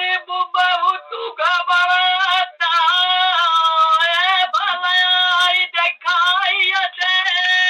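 Bagheli birha folk singing: a high-pitched voice holds long, wavering notes, with short breaks between phrases.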